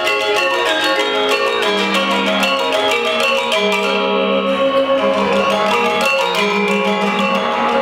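Balinese gender wayang quartet: four bronze-keyed metallophones with bamboo resonators, each played with two mallets, in fast interlocking figures. Rapid, dense strikes ring over held lower notes.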